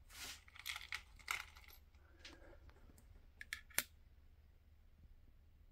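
Faint handling of a small metal screw and a pocket digital scale: light rustling, then a few sharp little clicks a little over three seconds in as the screw goes onto the scale's metal tray.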